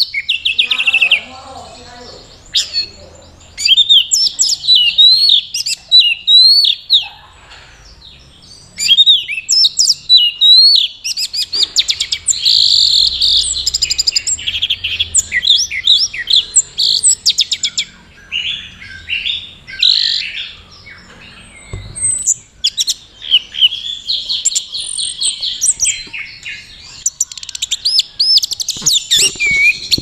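Orange-headed thrush (anis merah) singing a loud, fast, varied song of high chirps and quick rising and falling whistles, in long bursts with brief pauses. It is the drooping 'teler' display song that keepers believe marks a bird in breeding condition.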